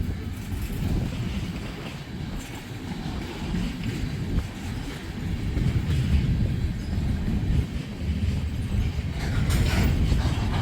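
Freight train cars rolling past at a grade crossing: a steady, deep rumble of steel wheels on rail, with a harsher, brighter stretch of rattling near the end.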